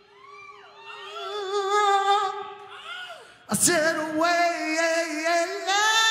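Male rock singer wailing held notes into a microphone, sliding up and down in pitch over a steady held tone, then a sharp loud entry about halfway through into a long note with vibrato.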